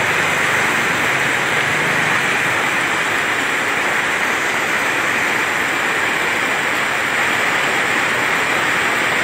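Heavy tropical downpour together with fast-flowing floodwater running across a road: a loud, steady, even rush of water noise.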